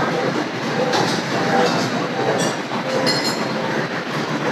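Busy buffet restaurant din: a steady wash of crowd chatter with a few short clinks of dishes and utensils.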